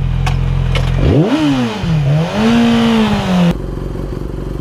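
Sport motorcycle engine idling, then revving as the bike pulls away: the pitch climbs sharply, drops back, and rises again to a held note. It cuts off abruptly about three and a half seconds in, giving way to a steadier, lower motorcycle engine hum.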